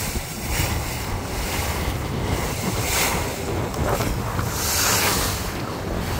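Wind buffeting the microphone in repeated gusts on the open deck of a moving river cruise boat, strongest about five seconds in, over a steady low rumble and rushing water.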